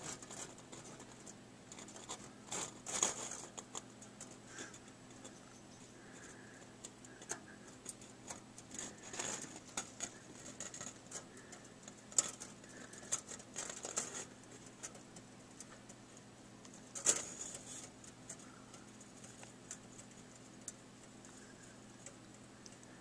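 Faint room tone with a low steady hum, broken by scattered light clicks and scratchy rustles, the strongest about 3, 9, 12 to 14 and 17 seconds in.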